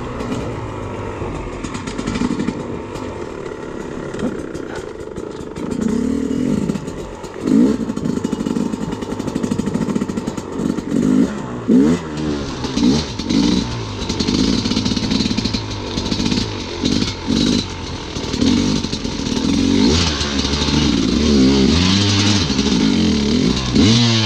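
Enduro dirt bike engine revving up and down in short, repeated bursts of throttle while being ridden off-road.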